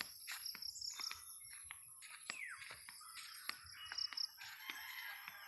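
Small birds chirping in short high notes, with one falling whistle a little after two seconds in. Scattered light clicks run underneath.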